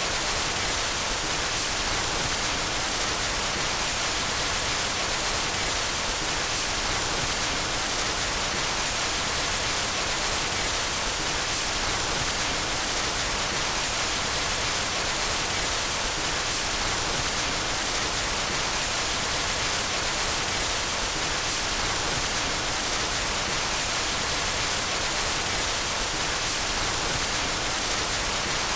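Steady white noise: an even, unbroken hiss with no change in level, strongest in the high frequencies.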